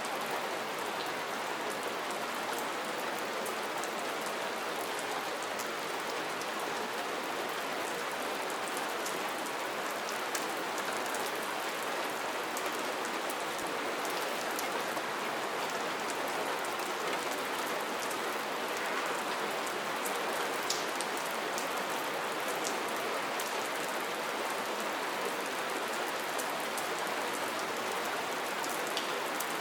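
Steady soft rain: an even hiss with many small drop ticks scattered through it.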